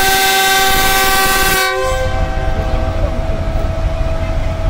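Multi-tone air horn of a Pakistan Railways GEU40 diesel-electric locomotive sounding a loud, steady departure chord, which cuts off about a second and a half in. After it, a low rumble from the locomotive as it pulls close.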